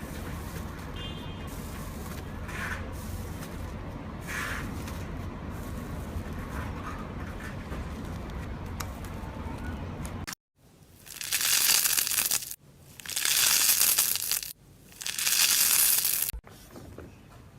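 Slime being squeezed: three loud rustling, crackling squishes, each about a second and a half, after a steady low rumble that cuts off suddenly partway through.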